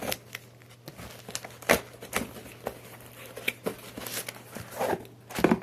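Packaging being handled and opened by hand: irregular crinkling, tearing and sharp crackles of plastic and paper.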